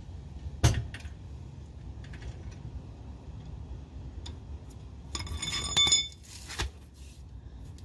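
Truck being let down off a jack onto its rear suspension: a sharp metallic click a little under a second in, then about five seconds in a brief ringing, squealing metal sound and another click as the frame settles onto the freshly fitted Sumo Spring.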